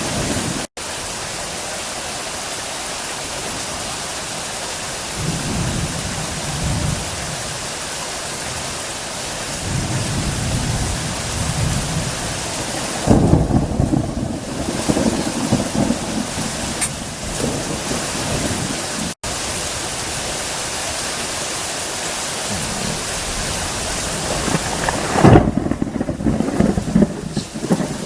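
Heavy rain falling steadily during a thunderstorm, with thunder rumbling and two loud thunderclaps: one about halfway through and a louder one near the end.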